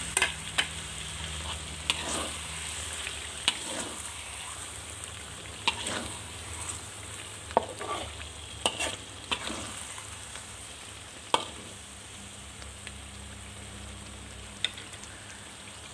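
Prawns sizzling as they fry in chili paste in a wok, with a spatula scraping and knocking against the pan at irregular moments as they are stirred in.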